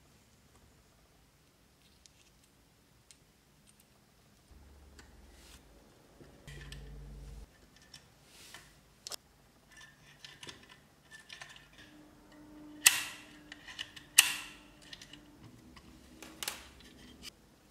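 Small metal model-kit parts clicking and tapping as they are handled and screwed together with a hex key, with two sharp clicks about a second apart past the middle.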